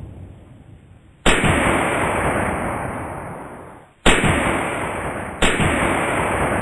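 Anti-tank rifle fired three times, the first about a second in and the next two close together near the end. Each loud shot is followed by a long echo dying away over two seconds or more.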